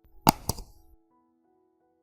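Two sharp clicks about a quarter second apart, dying away within a second, over soft background music.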